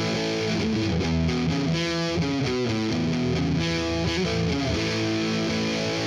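Intro music: distorted electric guitar playing sustained chords, with a run of quickly changing notes in the middle.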